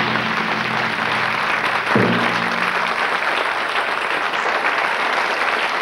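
Studio audience applauding steadily over sustained chords of background music, with a fresh chord coming in about two seconds in.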